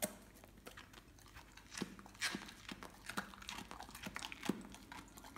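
A Weimaraner crunching and chewing a piece of raw vegetable: a run of irregular crisp crunches, a few louder bites about two seconds in and again near the end.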